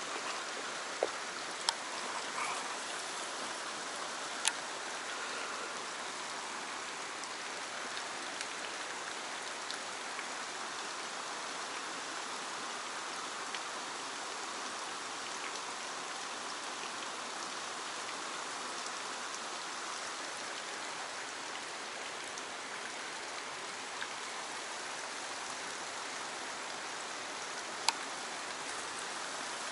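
Steady rush of a fast-flowing stream's current, with a few sharp clicks now and then.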